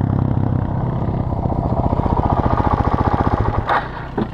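Suzuki DR-Z400S's single-cylinder four-stroke engine running at low revs right beside the ground-level camera. Its firing pulses come as a fast, even train that grows louder and then stops about three and a half seconds in. Two sharp knocks follow near the end.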